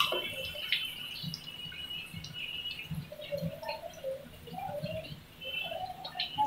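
Hot oil bubbling and crackling around par-fried potato fries as they are lifted out on a wire skimmer, with the odd metal click of the skimmer against the wok.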